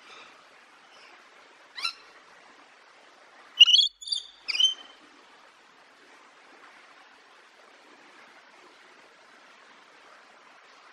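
Bird calls over a faint steady outdoor hiss: one short call about two seconds in, then three louder calls in quick succession near four seconds.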